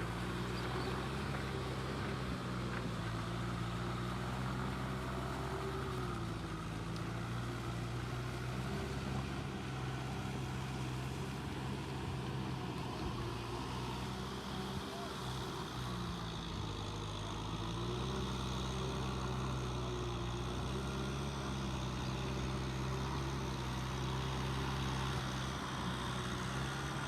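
An engine running steadily, its pitch dipping and recovering slightly a couple of times.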